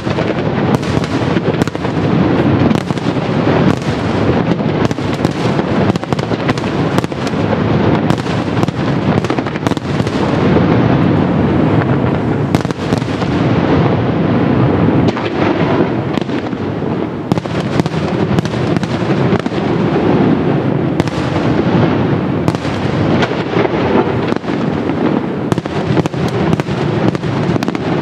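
Fireworks display in a dense, continuous barrage: many sharp shell bursts and bangs in quick succession over a steady rumble, with no pause.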